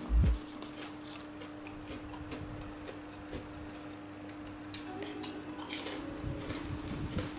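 Eating sounds: scattered light clicks of cutlery against a plate, with soft chewing. A single low thump comes just after the start, over a steady low hum.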